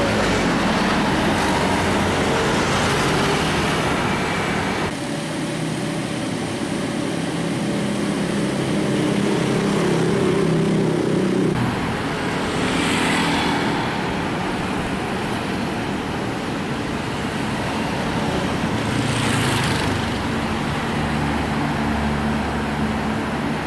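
Street traffic noise: engines running steadily with vehicles going by, two of them passing closer with a brief louder whoosh around the middle and again later.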